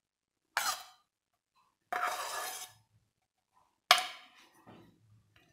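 Metal spoon clinking and scraping against a stainless steel bowl as grated carrot is scraped out: a sharp clink about half a second in, a short scrape around two seconds in, and a loud clink near four seconds that rings briefly.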